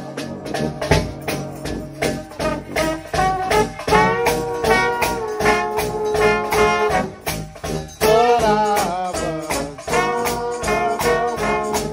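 Gospel trombone shout band playing: massed trombones and other brass sounding held chords in harmony, with a sousaphone and a drum kit keeping a steady beat.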